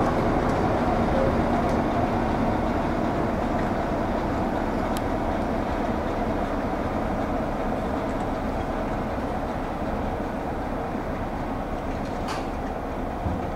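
Diesel-hauled heritage passenger train running past, with Class 46 No. 46045 on the rear: a steady rumble of engine and coaches that slowly fades as it draws away.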